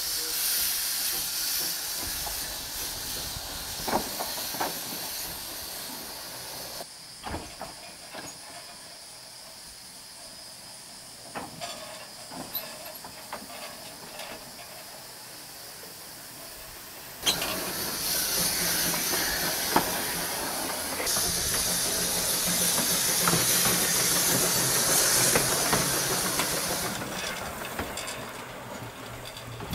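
Quarry Hunslet saddle-tank steam locomotive hissing steam from its open cylinder drain cocks. The hiss drops away after about seven seconds, leaving faint clanks and ticks, then a loud steady hiss of steam comes back suddenly for about ten seconds before fading.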